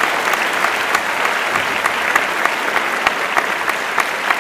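A large audience applauding, a dense steady clapping that starts suddenly.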